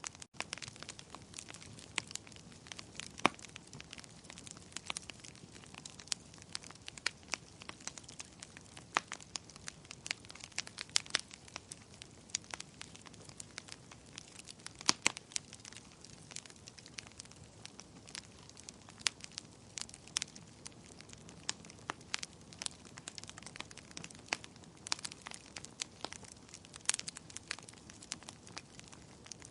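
Wood fire burning in a fireplace, crackling with irregular sharp snaps and pops, several a second, over a soft steady hiss.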